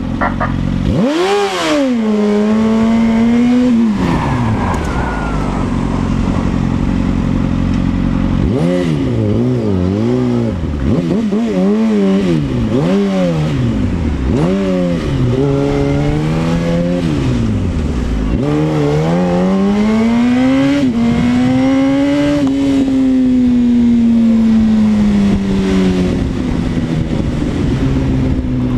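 Yamaha R1 sport bike's inline-four engine under way, revs climbing sharply about a second in, then rising and falling again and again as the throttle is opened and shut, before a long climb that is held and slowly eases near the end. Wind noise rushes underneath throughout.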